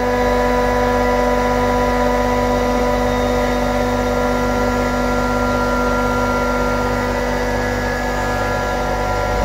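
Bitzer HSN semi-hermetic screw compressor installation running steadily: a loud, constant hum with several steady whining tones on top that do not change in pitch.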